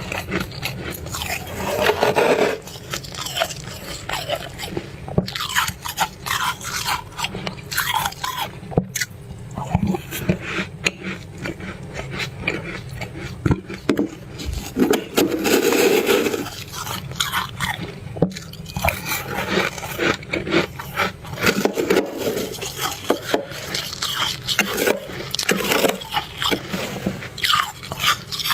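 Close-up crunching and chewing of fluffy freezer frost, with dense crackly bites throughout and louder bursts of crunching now and then.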